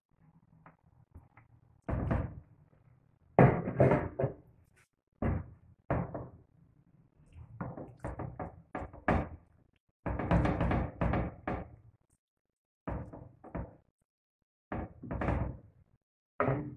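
Silicone spatula and plastic cutting board scraping and knocking against a nonstick frying pan in short, irregular bursts, as raw marinated chicken pieces are pushed into the pan and spread out.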